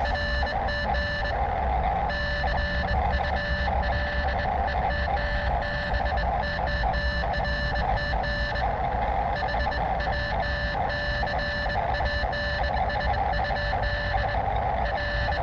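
Receiver audio from a small portable HF ham transceiver's speaker: steady whistling tones with rapid, irregular on-off beeping over them, with no voice.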